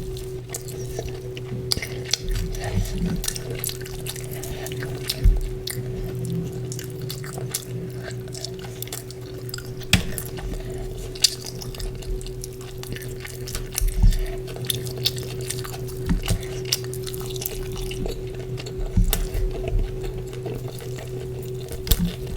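Close-up eating sounds of chicken curry with porota: wet chewing, squelching and lip smacks, with many sharp clicks, over a steady low hum.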